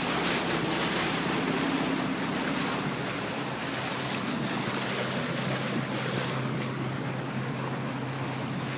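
1987 Reinell 170 runabout running steadily under way, its engine a low hum beneath the rush of wake water and wind buffeting the microphone.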